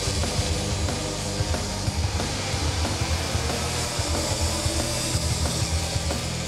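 Background music with a steady, fast beat.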